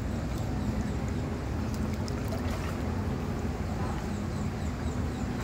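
Steady low rumble of swimming-pool water moving around the phone, with a faint steady hum underneath.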